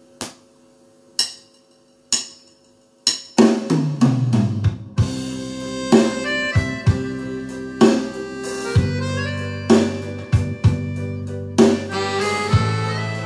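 Four sharp percussion clicks, about one a second, count in the band; then musette accordion music with bass and drums starts at a slow tempo, about one beat a second.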